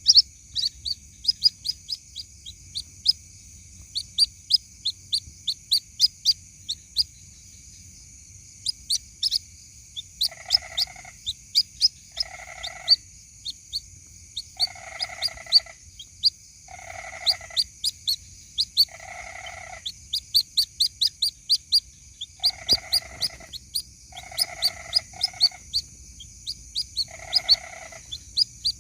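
White-breasted waterhen (ruak-ruak) chick calling for its mother: rapid, high, rising peeps, several a second. From about ten seconds in, a lower, fuller call repeats roughly every two seconds alongside the peeps.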